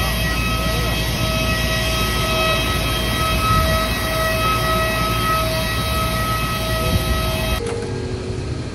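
Steady high whine over a rushing roar from a parked Airbus A330-300 and its equipment at the stand. It cuts off sharply near the end, giving way to quieter cabin sound.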